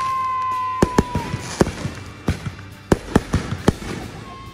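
Consumer firework cake firing: a steady whistle that dips and cuts out about a second in, over a run of sharp bangs and pops from the shots, irregularly a few a second.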